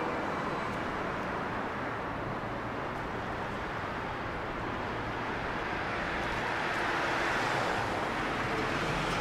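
City street traffic noise, a steady wash of passing cars, swelling as a car goes by close past the kerb near the end.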